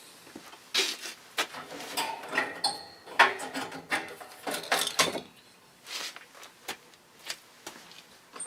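Irregular clicks, knocks and scrapes of hands and tools working on a metal box-fan motor while it is being taken apart to remove the screwed-in stator. Busiest in the first five seconds, with the sharpest knock a little past three seconds in, then sparser.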